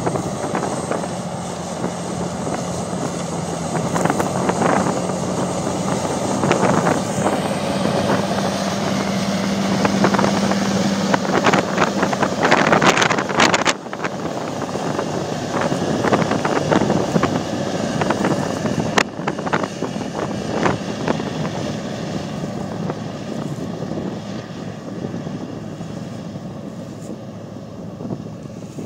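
Large farm tractor's turbo diesel engine running steadily under load while pulling a tillage implement, with wind buffeting the microphone. The sound changes abruptly about 13 seconds in and carries on as a similar engine rumble.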